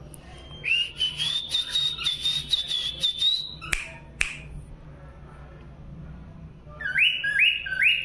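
A cockatiel whistling: one long high whistle lasting about two and a half seconds, then two short clicks, then three quick rising whistle notes near the end.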